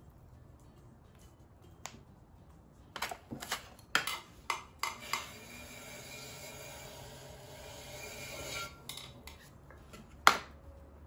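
Pottery tools being handled on the table beside the wheel: a run of clicks and light clatters, then a steady hiss for a few seconds, and one sharp knock near the end.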